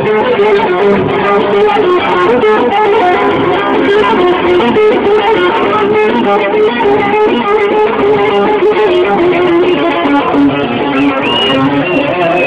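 Amplified bağlama (Turkish long-necked saz) playing a folk dance tune: a loud, continuous stream of quick plucked notes.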